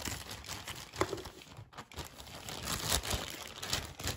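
Crinkling and rustling of plastic packaging being handled, with many small crackles and a sharper click about a second in.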